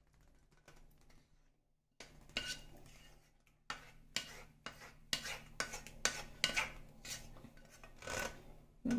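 A plastic ladle scraping and tapping against a metal kadai as thick curry is scraped out into a glass bowl: irregular scrapes and taps, starting about two seconds in.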